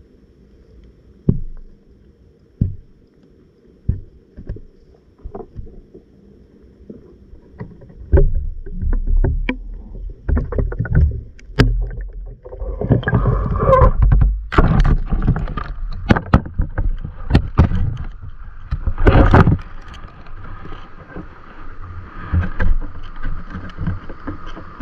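Water sloshing and handling knocks on an underwater camera as it is lifted through the water and out of it; it starts as a few faint single knocks about every second and a half, then turns loud and irregular about a third of the way in.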